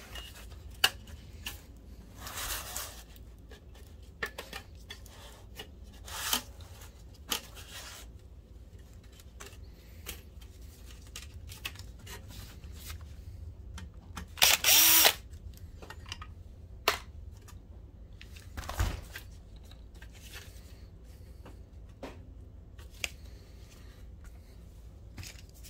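A cordless drill-driver runs once, briefly, about halfway through. Around it are scattered clicks and knocks from metal chassis parts and a circuit board being handled.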